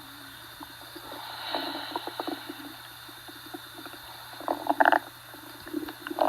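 A Maine coon cat's stomach growling from hunger: irregular low rumbles and gurgles, with a louder gurgle about five seconds in.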